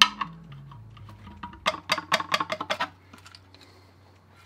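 A pry bar clicking and scraping against the thin cast-aluminium timing backing plate as it is levered off its silicone seal: one sharp click at the start, then a quick run of about eight clicks between about one and a half and three seconds in.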